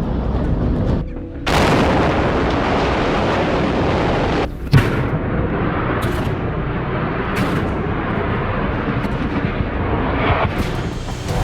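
Controlled building demolition: explosive charges going off as sharp bangs, and the heavy rumbling noise of the structure coming down. The noise breaks off and starts again about a second in and near four and a half seconds, and a loud bang comes just after the second break.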